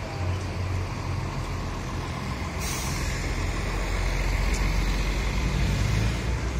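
City bus diesel engine idling with a steady low rumble; about two and a half seconds in, a short sharp hiss of released compressed air from the bus's air system.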